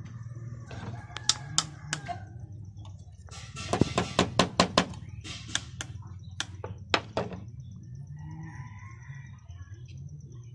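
A large knife cutting and shaving a small piece of wood: a fast run of sharp clicking strokes a few seconds in, then several more spaced-out strokes.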